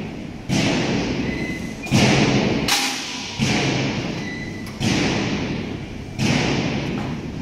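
A heavy thud about every one and a half seconds, each one trailing off over about a second.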